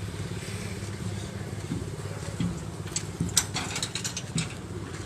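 A vehicle engine idling steadily, with a cluster of sharp knocks about three to four and a half seconds in.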